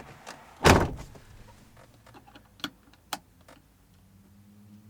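Toyota 80 Series Land Cruiser door shutting with a single heavy thud about a second in, followed by two light clicks a little later.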